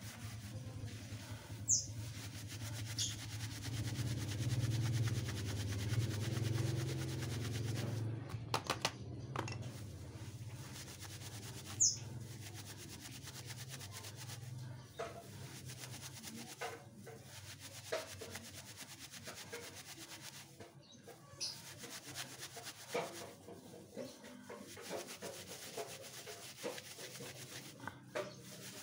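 Hands rubbing and pulling apart dry coconut husk fibre to fluff it into tinder, a dry rustling scrape with scattered small ticks. A low hum runs under the first half, and two short high chirps sound about 2 and 12 seconds in.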